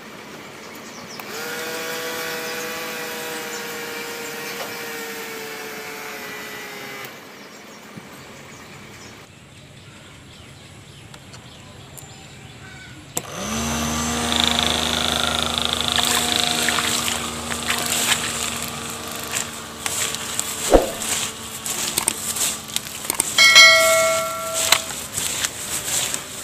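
Small battery-powered DC motors spinning the propeller fans of a homemade plastic-bottle air boat, a steady whirring hum that sags slightly in pitch. After a quieter stretch a motor starts suddenly about thirteen seconds in and keeps running, with irregular noise and clicks over it.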